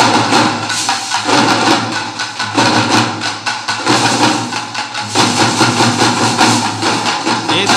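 A group of parai (thappu) frame drums struck with sticks, playing a fast, loud thappattam rhythm together, with a pattern that repeats about every second and a quarter.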